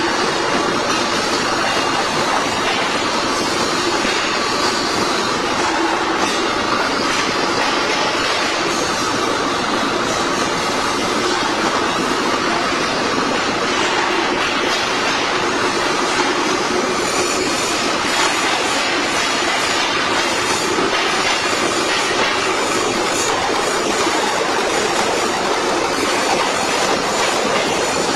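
CNC metal-spinning machine forming a steel dished head: a continuous, even noise of metal working with faint steady whining tones and no breaks.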